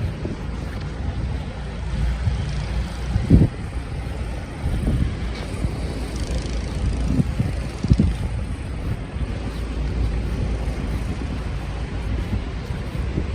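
Steady low rumble of city traffic mixed with wind noise on the microphone, with a few brief low thumps scattered through it.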